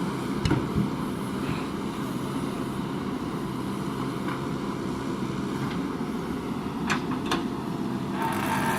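JCB 3DX backhoe loader's diesel engine running steadily, with a few sharp knocks about half a second in and again about seven seconds in.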